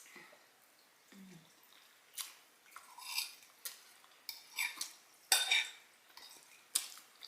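Cutlery clinking and scraping against a plate as food is picked up: a string of short, sharp clicks, loudest about five seconds in.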